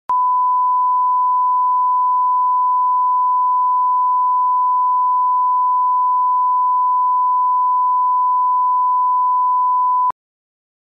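Steady 1 kHz reference tone of a colour-bars test signal: one unbroken pitch that cuts off suddenly about ten seconds in.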